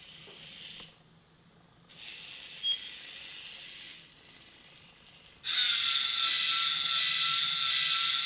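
LEGO MINDSTORMS EV3 robot's motors running through their gear trains: a soft whirr in two short stretches early on, then, from just past halfway, a loud, steady, high mechanical whine.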